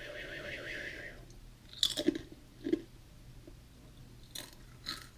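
A person chewing a mouthful of Oreo cookies, with a few sharp crunches from about two seconds in.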